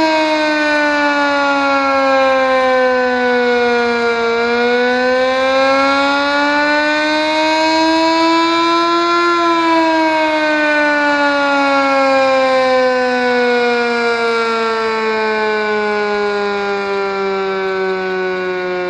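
Sentry 10V outdoor warning siren sounding loudly in a wail. Its pitch falls for about four seconds, rises for about five, then slides slowly down through the rest. It is a worn, 'sick' siren that has seen better days but is still punchy.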